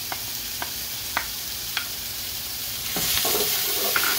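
Diced onion, carrot and celery sizzling in oil in a stainless steel pot, with a few sharp pops. About three seconds in it gets louder as a wooden spoon starts stirring the tomato paste into the vegetables.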